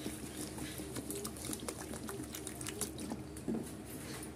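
Water poured into a steel bowl of foxtail millet (kaun rice), splashing and trickling as the water fills the bowl and covers the grain.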